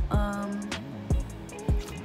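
Background music with a drum beat and a short melodic phrase near the start.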